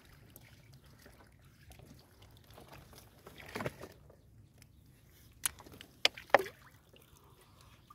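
Faint trickling and small splashes of water as hands work among water lily leaves in shallow water, with a few sharp clicks or splashes about five to six seconds in.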